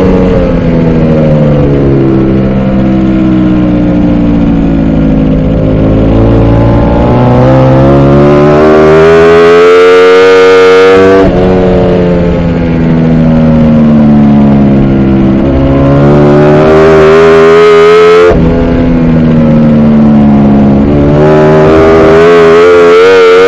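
Ducati Panigale V4 R race bike's V4 engine heard onboard at racing speed, its revs climbing and falling repeatedly through corners and straights. There are two sharp gear-change breaks, at about 11 and 18 seconds, under a constant rush of wind noise.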